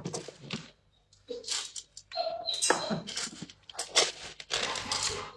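A plastic scoop digging through dry dog kibble in a plastic bin, the pellets rattling and rustling in irregular clatters, with a short lull about a second in.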